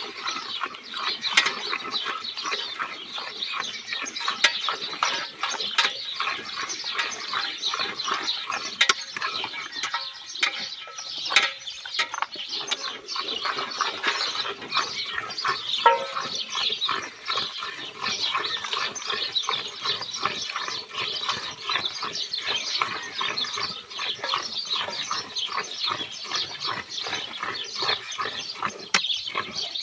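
Milk squirting in quick jets from a cow's teats into a steel bucket as it is milked by hand, giving a steady run of rapid swishing strokes.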